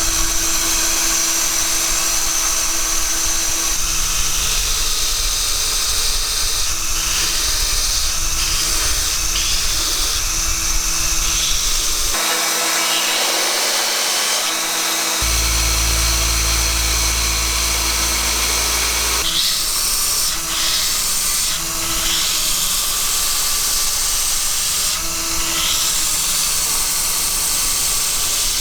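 An electric power tool running steadily on metal through several cut-together takes, its sound changing abruptly between shots.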